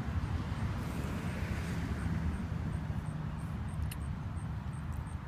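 Steady low outdoor rumble with a hiss that swells and fades between about one and two seconds in, and a faint click near the end.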